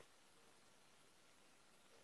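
Near silence: faint, steady room-tone hiss.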